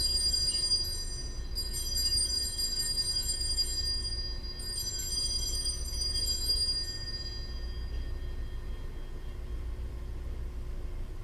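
Altar bells rung at the elevation of the consecrated host: one ring is fading at the start, another comes about a second and a half in and a third about five seconds in, each shimmering and dying away, the last gone by about eight seconds in. A low steady room hum lies underneath.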